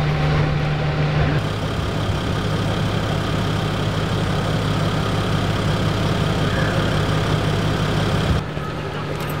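Parked police vehicles' engines idling with a steady low hum. The hum shifts abruptly about a second and a half in and again near the end.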